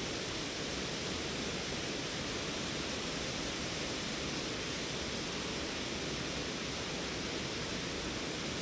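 Waterfall on a creek, water rushing steadily with no pauses.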